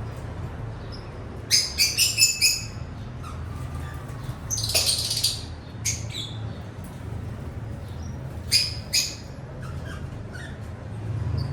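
Pet lovebirds and a cockatiel chirping. A quick run of four shrill calls comes about a second and a half in, a longer, harsher screech about halfway, and two more shrill calls near the end, over a steady low hum.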